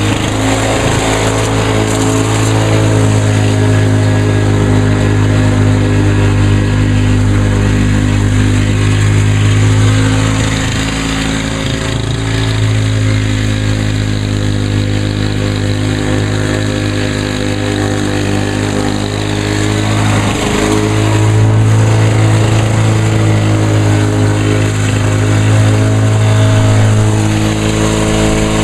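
Lawn-Boy two-stroke walk-behind mower running while cutting grass. The engine note is steady, with brief dips about 11 and 20 seconds in.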